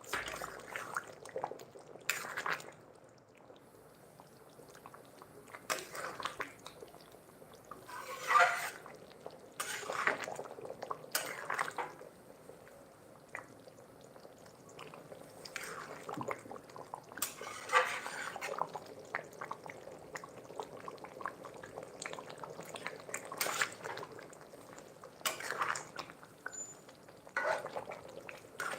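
A spoon or ladle scraping and clinking against a cooking pot, in short separate strokes spaced unevenly, about a dozen in all.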